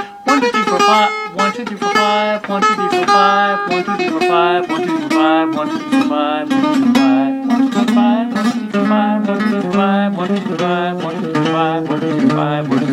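Acoustic guitar played as a fast, unbroken run of single picked notes, laid out in repeating five-note groups (quintuplets) that move around the neck.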